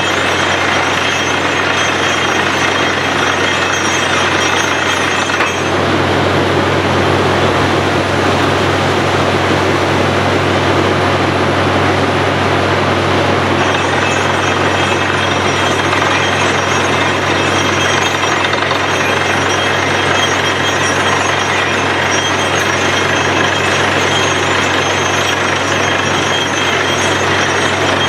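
Bore well drilling machine running: a loud, steady hammering clatter over a low machine hum, which deepens and grows stronger about five seconds in.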